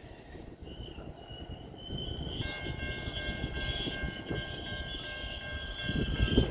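Slow-moving Herzog tie train rolling over the rails with a low rumble and knocks, louder thumps near the end. About two and a half seconds in, a steady high ringing tone of several pitches sets in and holds.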